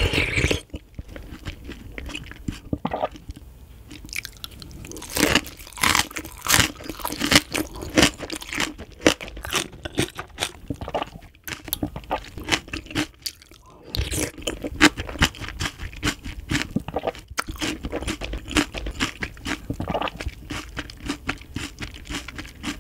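Close-up chewing with many short, crisp crunches: mouthfuls of scallion kimchi and water-soaked rice being bitten and chewed.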